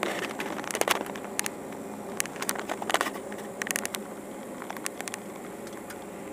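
Car driving at low speed, heard from inside the cabin: a steady noise that slowly gets quieter, with scattered sharp clicks and crackles, most of them in the first half.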